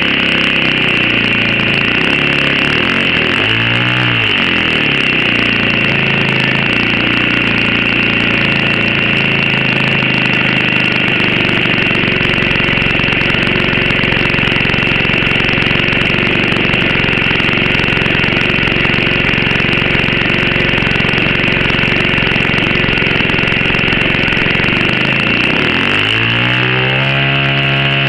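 OS 70 Surpass four-stroke glow engine on a model plane running steadily on the ground. Its pitch briefly dips and recovers about four seconds in, and rises near the end.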